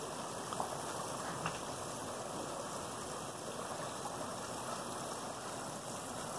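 Steady rush of moving water around a kayak, with two faint clicks about half a second and a second and a half in.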